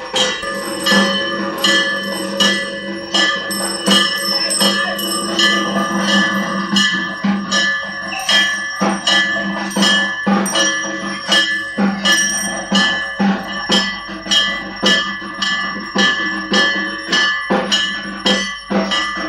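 Metal bells ringing over drum strikes in a steady rhythm of about two beats a second: devotional percussion, the bell tones ringing on between the strikes.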